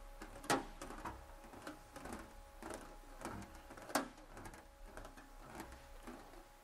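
Sheet-metal fender panel being rolled back and forth through an English wheel under light pressure, with faint irregular rolling knocks and two sharper clicks about half a second and four seconds in. This is the planishing pass that smooths out the hammer lumps.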